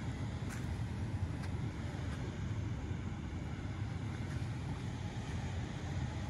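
Steady low rushing outdoor noise, with a few faint clicks.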